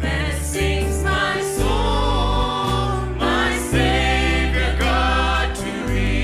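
Worship music: several voices singing together over band accompaniment with sustained bass notes.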